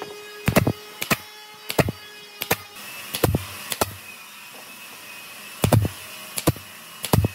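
Nine sharp knocks on wood at uneven spacing, half a second to two seconds apart, with a longer pause about halfway through.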